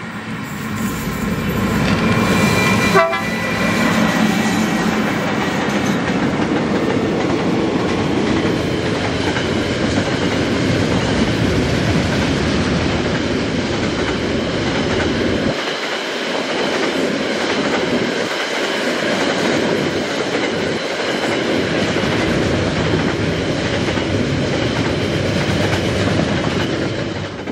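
KiwiRail EF-class electric locomotives hauling a long freight train past at close range. The sound swells over the first two seconds, with a short horn sounding as the locomotives come by. After that comes a steady loud rumble and clatter of container and curtain-sider wagons rolling along the rails.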